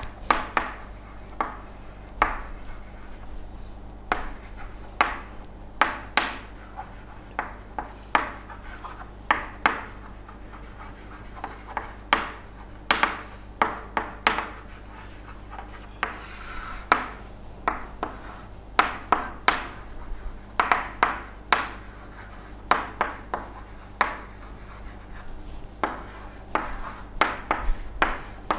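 Handwriting: a long run of short scratching and tapping strokes with brief pauses between them.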